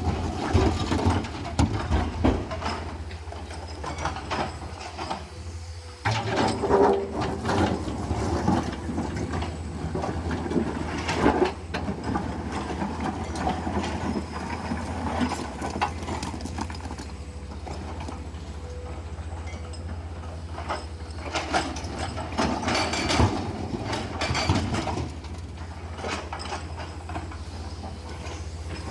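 Komatsu PC210LC-10 hydraulic excavator's diesel engine running steadily, with irregular clatter and knocks from the bucket scooping and dumping crushed stone.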